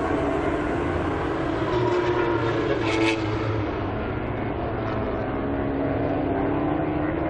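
MotoGP race motorcycles' engines running at high revs, their pitch drifting up and down as the bikes change speed.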